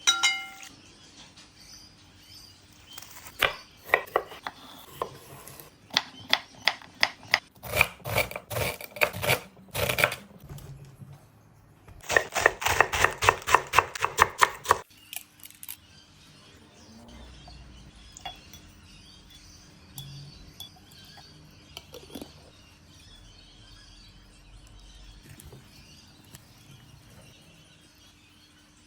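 A ringing clink at the start, then a kitchen knife chopping vegetables on a cutting board in several quick runs of strokes, the last and fastest run ending about fifteen seconds in. After that come only faint kitchen handling sounds.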